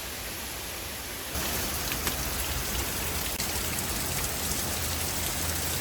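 Waterfall splashing steadily, sounding like heavy rain on rock; it gets suddenly louder about a second and a half in.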